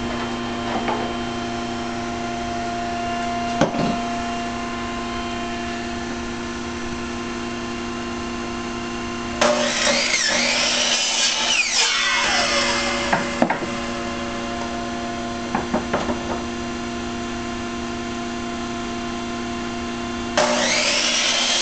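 Hitachi C10FCE2 compound miter saw cutting through the wooden end of a baseball bat, twice: once for about four seconds near the middle and again starting near the end. A steady machine hum runs underneath throughout.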